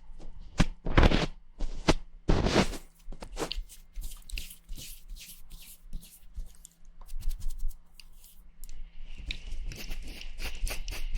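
Close-miked ASMR mouth sounds and ear-licking: irregular wet clicks and smacks, sparse at first and coming much faster from about nine seconds in.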